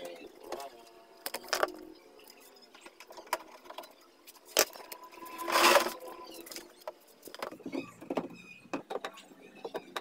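Scattered clicks, taps and knocks of plastic washing-machine cabinet panels being worked on with a screwdriver and by hand, with one louder rough scraping rustle about six seconds in.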